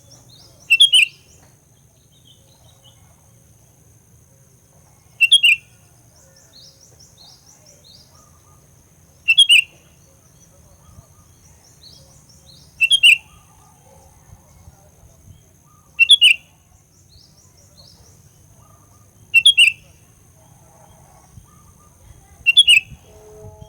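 Sooty-headed bulbul (kutilang) calling: a loud, short call repeated seven times at an even pace, about every three and a half seconds, with fainter twittering in between. A faint steady high whine runs underneath.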